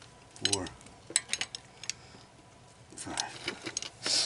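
Metal clinks of a socket and breaker bar on a car's wheel lug nuts as they are tightened in turn: a few sharp clicks about half a second in and a quick cluster just after a second, then softer handling noise near the end.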